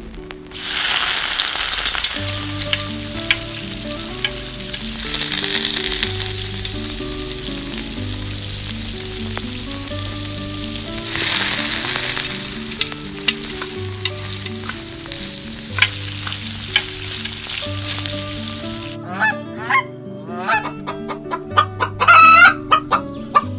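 Battered egg pieces frying in hot oil in a tiny steel kadai: a dense sizzle that starts about half a second in, swells twice and is dotted with small pops. From about 19 seconds in, a run of chicken clucks and goose honks comes in, loudest near the end.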